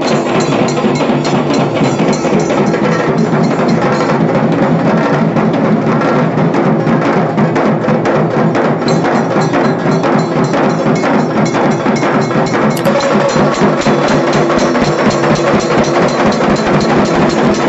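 Dhol-tasha drum ensemble playing: fast, dense tasha drumming over dhol beats, loud and unbroken.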